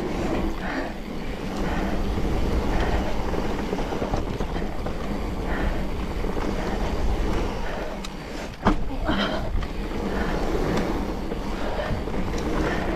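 Mountain bike riding down a dirt trail: tyres rolling and rumbling over the ground with the bike rattling, and a sharp knock about eight and a half seconds in.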